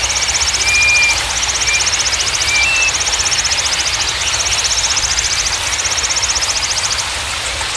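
Steady rush of running water with a high, fast-pulsing trill that repeats in phrases about a second long and stops about seven seconds in. A few short whistled bird notes sound in the first three seconds.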